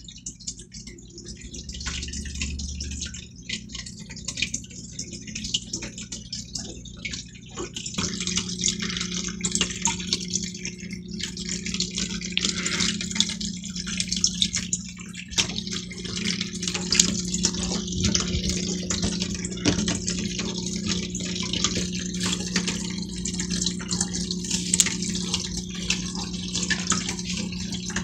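Turtle-tank filter running: water trickling and splashing steadily back into the tank over a low motor hum, which gets stronger about eight seconds in.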